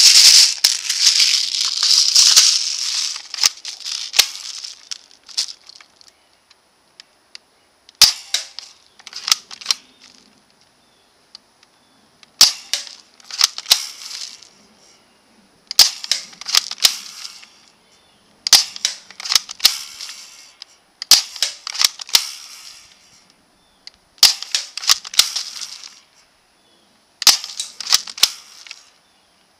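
Well M16A1 spring-powered airsoft rifle fired over and over, a shot about every three seconds. Each shot is a sharp snap followed by a second or so of clicking and rattle from the gun, with a longer dense burst of noise at the start.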